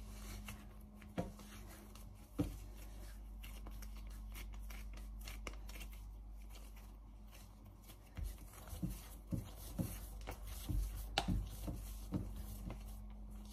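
Hands kneading a soft ball of puff pastry dough on a floured stone countertop: faint soft pats and taps, coming more often in the second half.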